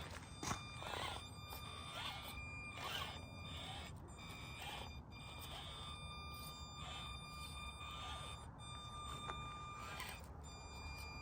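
Axial SCX24 micro RC crawler's small electric motor whining steadily under low-speed crawling, with its pitch shifting a little. Scattered scrapes and clicks of the tires and chassis on the ground run through it.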